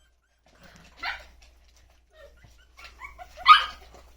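Young puppies yipping: two short high yelps, one about a second in and a louder one near the end, with faint little squeaks between.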